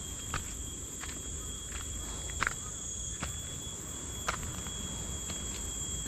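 Footsteps on a dirt trail covered in dry leaf litter, short sharp steps about once a second, over a steady high-pitched drone of insects.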